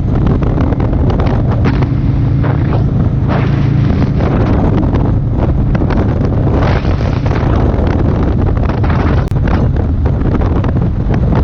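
Wind rushing over the camera microphone of a moving motorcycle, with the bike's engine running steadily underneath.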